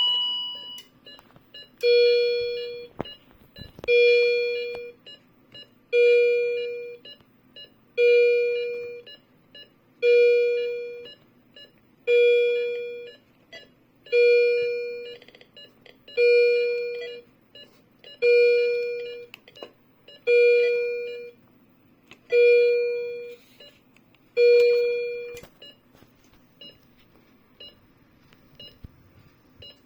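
Philips M3046A Viridia patient monitor sounding an alarm: a fairly low tone, about a second long and fading, repeated every two seconds, twelve times. The alarm stops about 25 seconds in, leaving only faint short high beeps.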